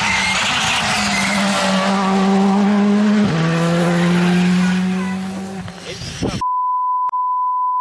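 Rally car engine under hard acceleration as the car comes up a wet road, its note stepping down about three seconds in as it shifts up, then fading after about six seconds. Near the end a steady high beep tone cuts in and holds.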